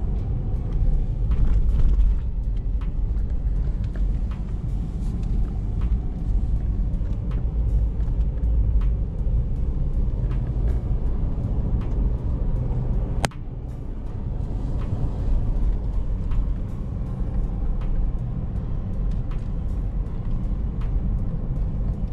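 Road noise heard inside a moving vehicle's cabin: a steady low rumble of engine and tyres, with scattered light knocks from the rough road. About thirteen seconds in there is one sharp click, after which the rumble is briefly quieter.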